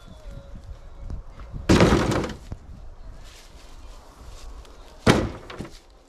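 Split pieces of dry firewood tossed into a wheelbarrow, landing with two clattering crashes, one about two seconds in and one near the end.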